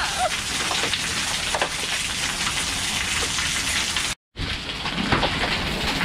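Heavy rain pouring and splattering onto a paved walkway, steady throughout, with the sound cutting out for a split second a little after four seconds in.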